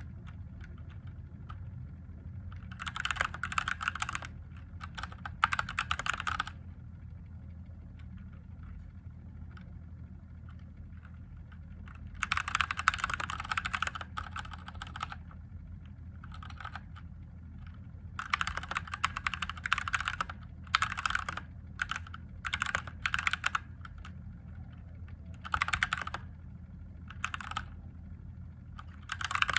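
Typing on a mechanical keyboard with Gateron Yellow linear switches: runs of rapid keystrokes clacking in bursts of a second or two, with pauses between them.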